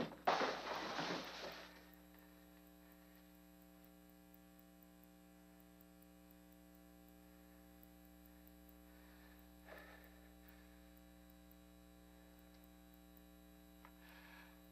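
A loud clattering crash for the first second and a half, then quiet with only a steady electrical hum, broken by one faint brief rustle about ten seconds in.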